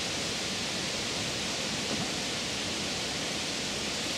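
Steady, even outdoor noise, a constant hiss with no distinct knocks or splashes standing out.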